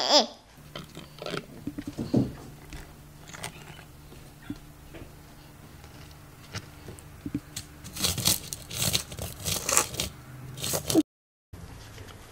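Hands working a lollipop in small plastic bowls of jam and toppings: scattered soft clicks, scrapes and crackles, thickening into a busier run about eight to ten seconds in, over a low steady hum. The sound cuts out to dead silence for half a second near the end.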